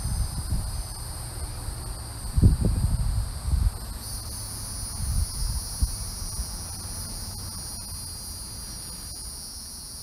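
Crickets and other insects trilling in a steady high chorus, with low gusts of wind buffeting the microphone, the strongest about two and a half seconds in.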